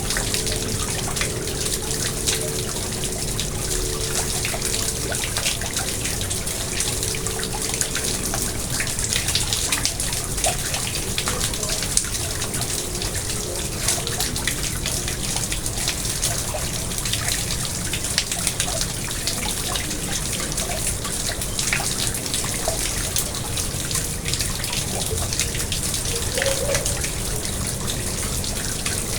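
Water splashing and trickling steadily into a garden pond, with many small drips.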